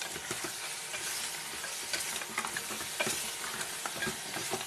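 Raw beef pieces and marrow bones sizzling in hot oil in a metal pot, stirred with a wooden spoon that knocks and scrapes against the pot in short, irregular clicks.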